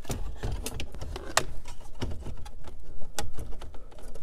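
Irregular plastic clicks and knocks as an aftermarket car stereo in its dash-kit brackets is pushed and worked into the dash opening, with a sharper click about a second and a half in.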